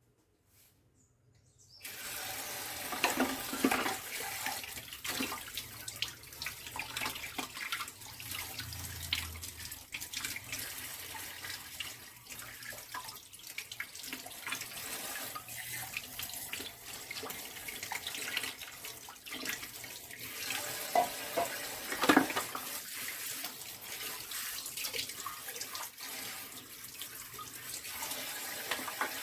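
A tap starts running about two seconds in and keeps running steadily as the disassembled juicer's plastic parts are rinsed under the stream, with occasional sharp knocks.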